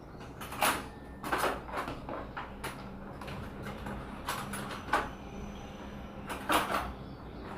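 Irregular scraping and rubbing sounds, about six short strokes over several seconds, from handling the slime mixture of glue and shaving foam in a bowl while gouache paint is being added.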